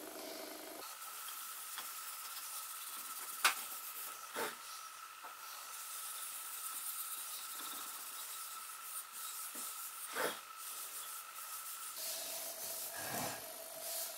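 Cloth rubbing wood polish into the faces of a wooden corner joint, a steady dry scrubbing, with a few sharp knocks of the wood about a third of the way in and again later.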